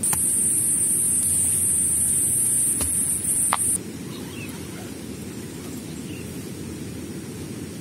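A steady high-pitched insect buzz for the first four seconds, then it cuts off. A few short knocks come in that stretch. A low steady rushing runs underneath throughout.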